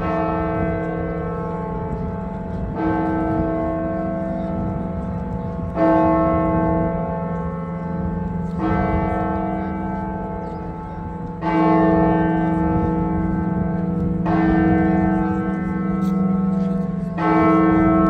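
Russian Orthodox church bell struck in slow, even strokes about every three seconds, each stroke ringing out over a deep, steady hum that carries on between strokes. This is Easter bell ringing.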